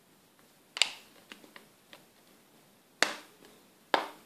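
Plastic back cover of a Samsung Galaxy Note II pressed onto the phone, its clips snapping into place: three sharp clicks, about a second in, at three seconds and near the end, with a few fainter ticks between.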